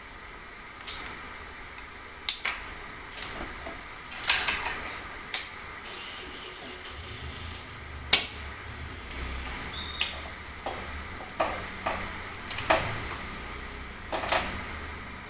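Irregular metallic clicks and clinks of tools and small steel parts being handled while a Sharp Innova pump air rifle is taken apart. The sharpest clinks come about two seconds in and about eight seconds in.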